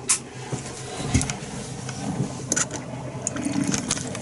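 Motorhome water pump running with a steady hum while the water system fights air pockets, with three sharp clicks and knocks from handling.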